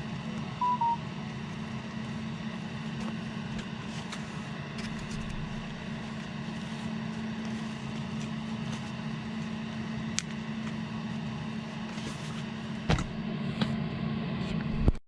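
A steady low hum, like a machine or appliance running. About half a second in there is a short two-note electronic beep, and near the end a few sharp clicks and knocks.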